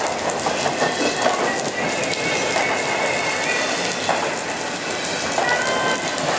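Double-stack intermodal container cars rolling past on the rails with a steady rumble and rattle, mixed with rain falling. A thin, high wheel squeal rises out of it twice, about two seconds in and again near the end.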